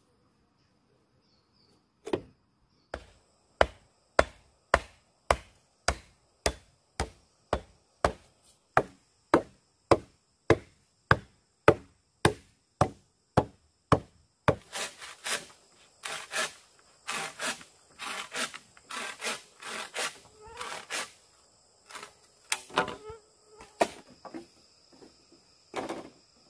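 A hammer driving a bamboo post into the ground in steady blows, nearly two a second. About halfway through, the blows give way to rougher, irregular knocking and scraping of wood. Insects buzz steadily at a high pitch throughout.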